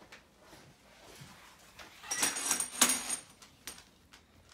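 A dog's leash clip and service-vest buckles jangling and rattling as a large dog picks them up and carries them, loudest for about a second about two seconds in, with a few faint clicks around it.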